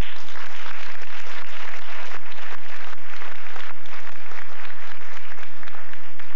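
Audience applauding, breaking out suddenly as a performance ends.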